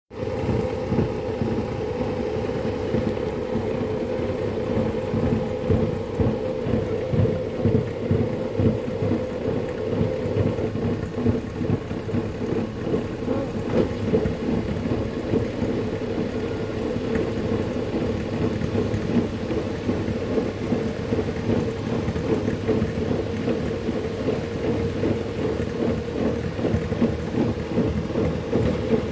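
LG F2J5WN3W front-loading washing machine running, with a steady hum and the uneven splashing and knocking of wet laundry and water in the turning drum.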